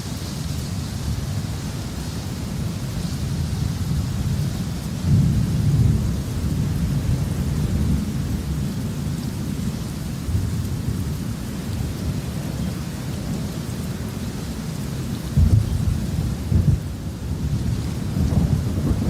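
Thunderstorm: steady rain hiss under continuous low rolling thunder, which swells about five seconds in and again twice near the end.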